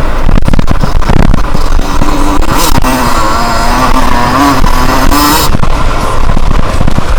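Yamaha YZ125 two-stroke single-cylinder engine running under load on a trail, its pitch wavering up and down as the throttle varies. Wind buffeting and knocks on the on-board camera microphone are mixed in.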